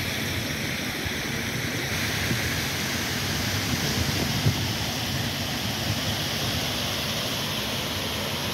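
Large plaza fountain splashing, a steady rush of falling water.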